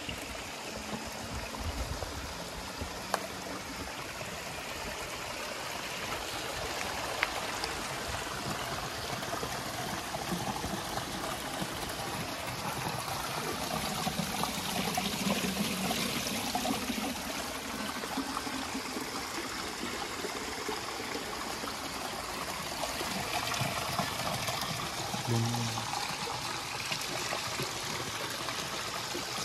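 A small stream running over rocks, a steady rush of water, with a couple of brief sharp knocks.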